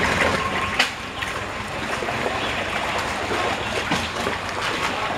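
Steady noise of a wooden canal boat moving along the water, with water washing past the hull. There is a single sharp knock just under a second in.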